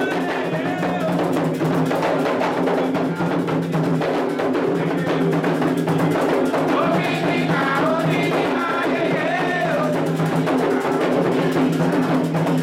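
Candomblé ritual drumming on atabaque hand drums, a fast dense rhythm for the orixá Oxum. Voices sing over the drums around the middle.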